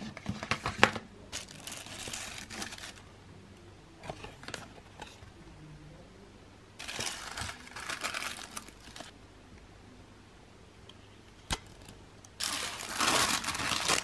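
Paper and card packaging of a watch box being handled and unpacked: tissue paper and cards rustling and crinkling in three main bursts, with a single sharp click about three-quarters of the way through.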